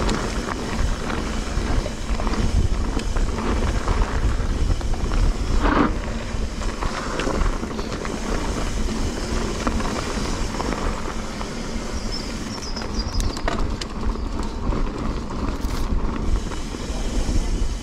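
Mountain bike being ridden along a dirt trail, heard on a GoPro: a steady rumble of wind buffeting the microphone and tyres on the ground, with scattered clicks and rattles from the bike.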